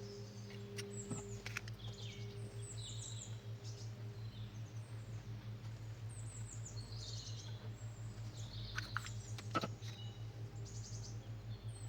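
Small birds chirping and trilling in quick high phrases over a steady low pulsing hum.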